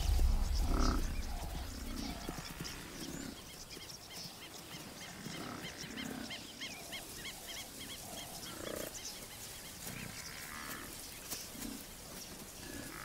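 Wild animals giving short low grunts and growls, scattered every second or so, with a quick run of high chirps in the middle. A low rumble fades away over the first few seconds.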